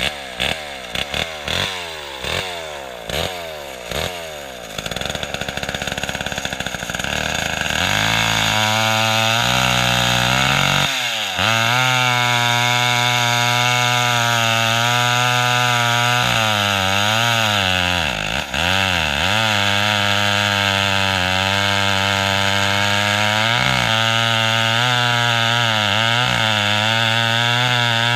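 Lombard AL42 two-stroke chainsaw being pull-started: a quick run of pulls, about two a second, for the first few seconds, then the engine catches about eight seconds in and keeps running steadily, with its speed dipping briefly a few times.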